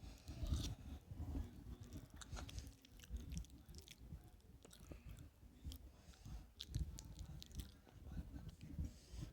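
A person chewing and biting a soft mouthful of sweet potato, with irregular small mouth clicks.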